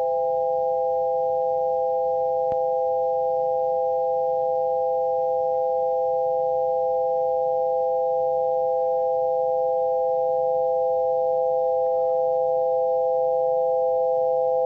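Three steady synthesized sine tones held together as one unchanging chord, each a single pure pitch in the middle register. They are the tones of an audio representation of a root 2, root 3, root 5 triangle.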